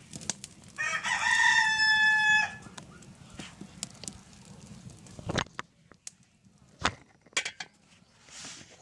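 A rooster crows once, a single long call starting about a second in. A few sharp clicks and knocks come later.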